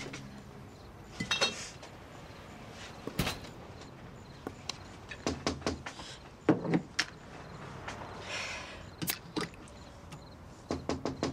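Scattered clicks, taps and short rustles of things being handled at a kitchen counter, then a quick run of about five knocks near the end.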